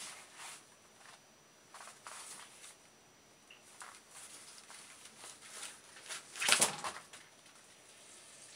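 A ferret shifting about in a wire letter basket on a door, rustling the paper leaflets under it in soft scattered bursts, with one much louder rustle and clatter about six and a half seconds in as it climbs out of the basket.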